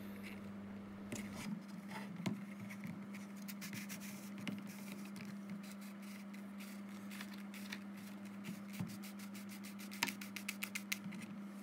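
Light handling sounds: scattered clicks, taps and scrapes, with a dense run of rapid clicks in the middle and a few sharper taps near the end, over a steady low hum.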